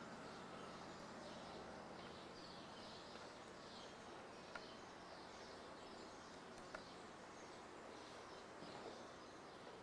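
Near silence: steady hiss and a low hum, with faint high chirping and two small clicks near the middle.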